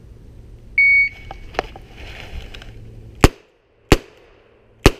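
A short electronic beep from a shot timer about a second in, then three shots from a Smith & Wesson Model 27-2 .357 revolver fired double-action, the first two about two-thirds of a second apart and the third a second later.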